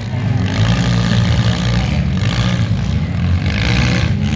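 Several demolition derby cars' engines revving hard together as the cars pull off at the restart of the heat, the engine roar rising and falling.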